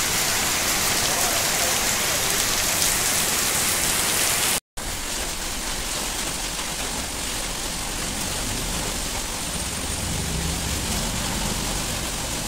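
Heavy rain pouring down in a steady hiss. It cuts out for a moment about four and a half seconds in, then carries on slightly quieter.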